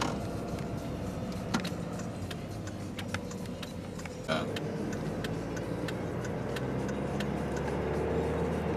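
Car interior while driving: the engine running under steady road and tyre noise, with scattered light clicks. The engine note grows a little louder near the end.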